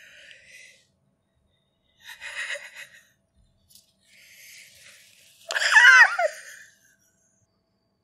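A woman's breathy, wheezy laughter in short bursts, then a louder, high-pitched laugh about five and a half seconds in.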